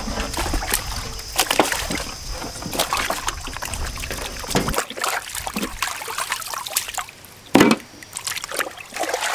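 Water sloshing and splashing in a large aluminium pot as raw goat legs are washed in it by hand, with scattered knocks and a louder thud near the end.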